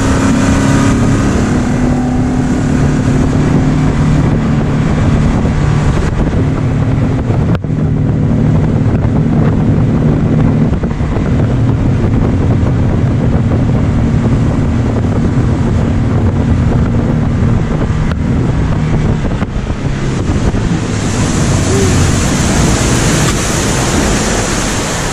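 Small motorboat underway: the engine runs at a steady pitch over the rush of water and wind buffeting the microphone. Toward the end the engine tone weakens and a brighter hiss of wind and spray takes over.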